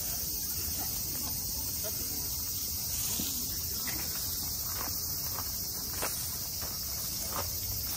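Steady, high-pitched chorus of summer cicadas in the trees, with a few light taps and footsteps from the second half on.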